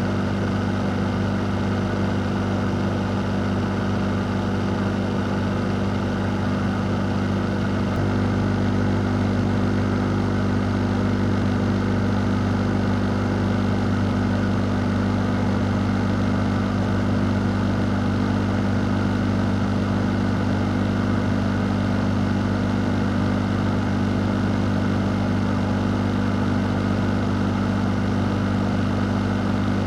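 Fan running steadily: an even rush of air over a constant low electric hum.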